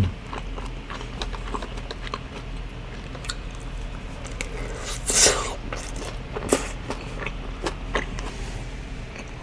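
Close-up sounds of boneless fried chicken being chewed and bitten: scattered small wet clicks, with one louder noisy burst about five seconds in.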